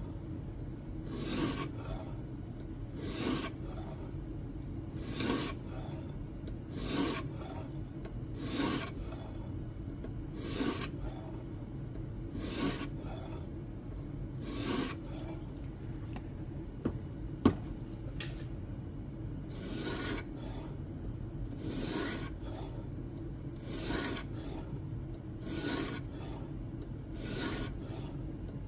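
Diamond plate of a guided knife-sharpening system swiped across the edge of an N690 steel blade with light pressure, a short scraping rasp roughly every two seconds. One sharp click about two-thirds of the way through.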